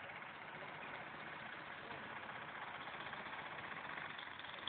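Steady faint outdoor background noise with no distinct sound event.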